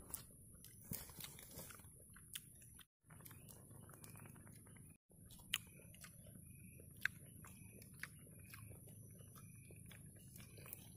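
Faint close chewing and mouth sounds of a man eating rice, with a few sharp clicks scattered through it. The sound drops out briefly twice.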